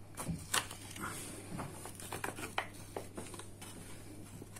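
Foil lid being peeled back off an aluminium food tray of beef meatballs, giving faint, irregular crinkling and small crackles.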